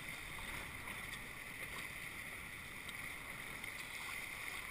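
Water rushing and splashing along the hulls of a Tornado catamaran under sail, mixed with wind: a steady, even rush of noise.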